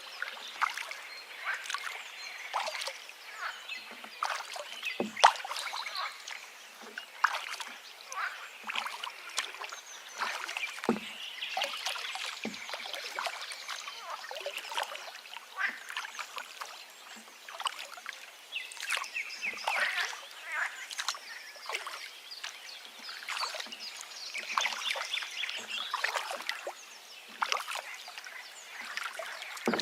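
River water babbling and splashing, with birds calling. There are a few sharper splashes about five and eleven seconds in.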